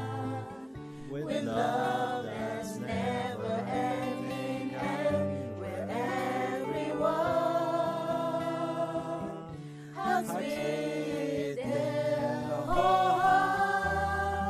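A song sung by a group of voices over instrumental backing, with held bass notes beneath; the music dips briefly about two-thirds of the way through before the next phrase.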